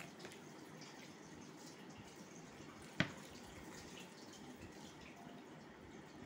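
Fingers mixing dal-soaked rice on a steel plate: faint, wet squishing and light scraping, with one sharp tap on the plate about three seconds in.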